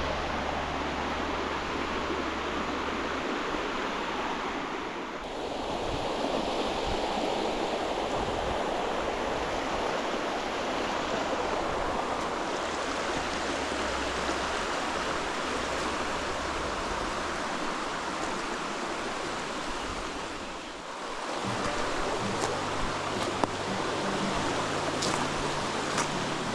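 Flowing stream water, a steady rushing hiss, with quiet background music's low notes underneath. There are a few light ticks near the end.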